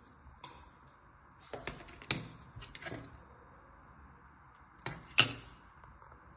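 Hard black plastic laptop bottom case, an HP Compaq Presario CQ62's, being handled: a scattering of clicks and knocks, the loudest two about two seconds in and about five seconds in.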